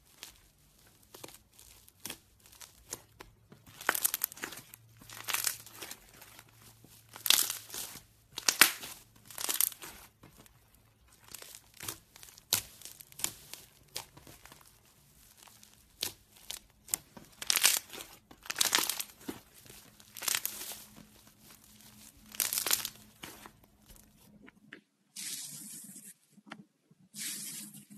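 Thick slime being stretched and torn apart by hand, giving irregular bursts of crackling and tearing. Near the end the sound changes as fingers press into a different slime packed in a plastic tub.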